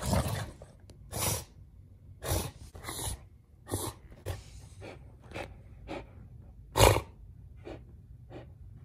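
A Doberman and a pit bull play-fighting mouth to mouth. Their dog sounds come as a string of short, sharp bursts about once a second, the loudest about seven seconds in.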